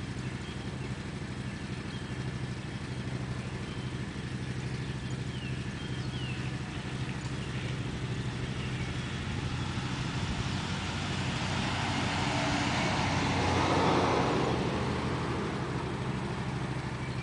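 A road vehicle passing on the street, its noise swelling to a peak about fourteen seconds in and then fading, over a steady low hum.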